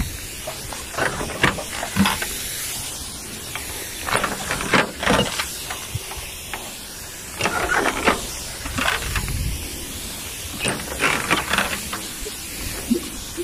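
Herbicide sprayer wand hissing as it sprays a fine mist of weedkiller over weeds. Irregular short rustles and knocks break in every second or two.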